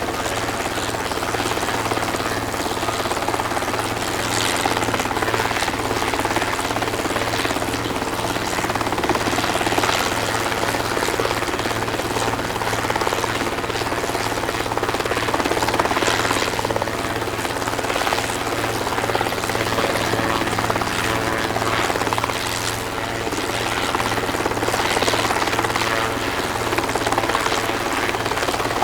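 Helicopter running steadily, its rotor chop a rapid even pulsing over a constant low engine hum. It starts suddenly.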